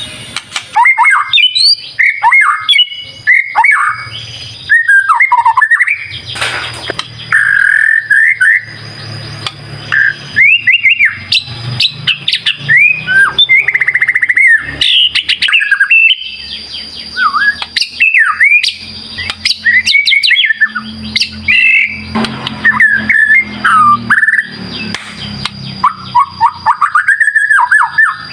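A male white-rumped shama singing vigorously: rapid, varied phrases of whistled rising and falling sweeps, trills and harsher notes, one after another with short gaps. A thin steady high whine runs in the background.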